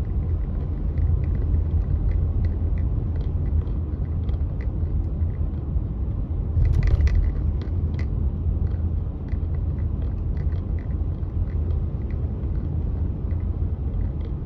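Car interior road noise while driving slowly: a steady low rumble with scattered light ticks, and one louder brief clatter about seven seconds in.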